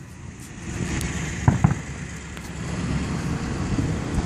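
Aerial fireworks shells bursting, with two sharp bangs about a second and a half in over a steady low rumble.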